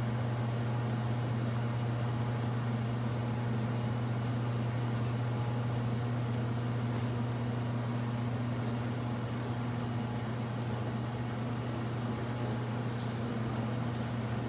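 Steady low hum that does not change, with a faint tick near the end.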